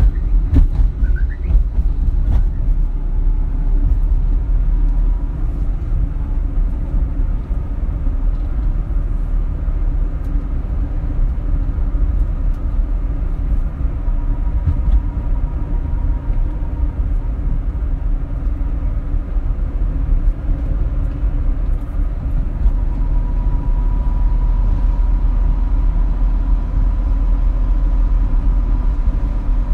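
Steady low rumble of background noise, with a faint steady tone that grows stronger in the last few seconds and a few clicks in the first couple of seconds.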